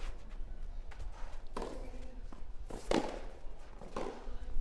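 Tennis ball struck back and forth by rackets in a rally: three sharp hits, a little over a second apart.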